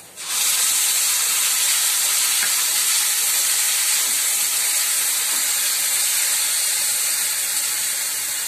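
Tomato purée poured into hot oil and browned onions in a kadhai: a loud sizzling hiss that starts suddenly and eases off slightly near the end.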